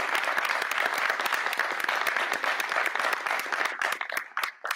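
Audience applauding, dense clapping that thins out to a few last separate claps near the end.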